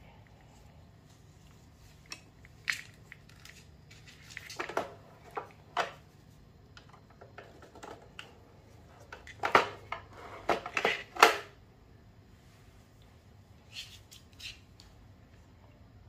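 Handling noise from a Bigston KQ-200 cassette recorder's plastic casing: scattered knocks, clicks and rustles as it is lifted and a cable plug is pushed into its side jack. The sounds are loudest in a cluster of knocks a little past halfway.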